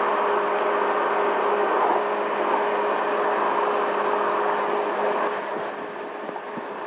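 Wind rush and a steady engine hum from a Honda Helix CN250 maxi-scooter cruising at highway speed, heard from the rider's seat behind the windshield. The rushing eases off about five seconds in.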